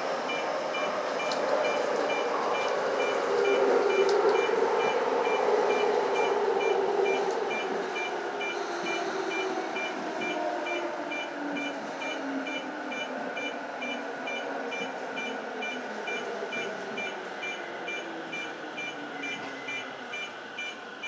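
Electric commuter train braking into an underground station: the traction motor's whine falls steadily in pitch as it slows, over wheel and rail rumble. A steady run of short, evenly spaced high beeps runs throughout.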